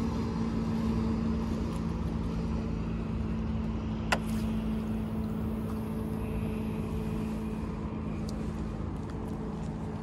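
A steady low engine drone with a constant hum. A single sharp click sounds about four seconds in.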